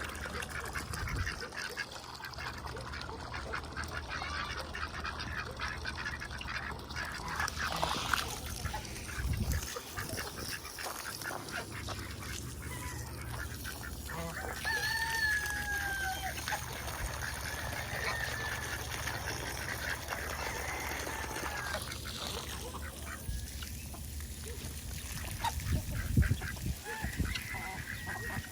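A flock of domestic ducks quacking and chattering continuously, with a few clearer, longer calls about halfway through and again near the end.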